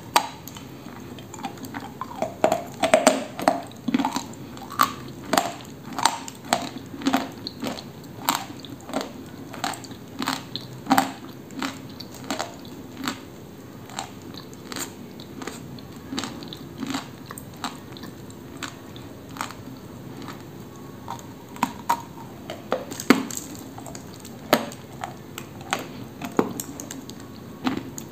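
Biting and chewing a dry chunk of koksol clay: a run of sharp dry crunches close to the mouth, about two a second, thinning out past halfway, with a few stronger bites near the end.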